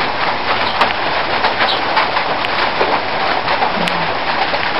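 Steady rain, a dense pattering hiss with many small ticks.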